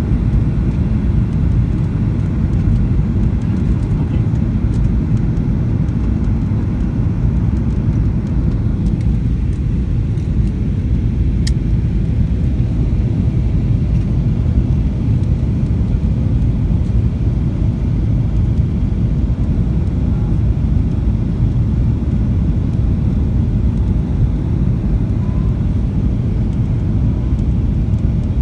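Steady low rumble of a Boeing 737-800 in flight, from its engines and airflow as heard inside the cabin. A single brief click sounds about a third of the way through.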